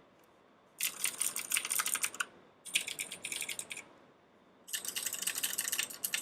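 Clicky mechanical keyboard switches pressed rapidly by hand, giving three bursts of quick, sharp clicks with short pauses between.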